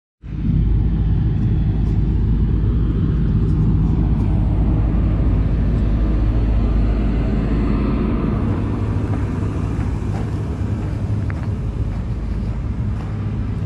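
Large diesel generator set running steadily: a deep, even engine hum at a constant pitch under a rumble, easing slightly after about eight seconds.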